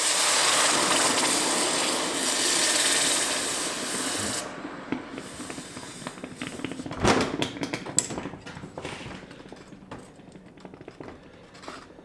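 Hot bronze castings quenched in a bucket of water: a loud steam hiss and sizzle that cuts off sharply about four and a half seconds in, leaving faint crackling and bubbling. A single knock about seven seconds in.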